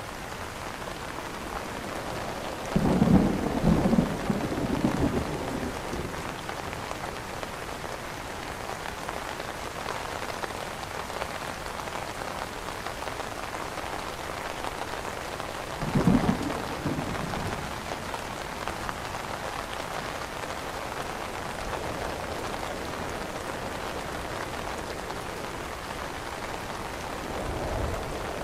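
Steady rain falling on an umbrella canopy. Two louder low rumbles swell up over it, about three seconds in and again about sixteen seconds in.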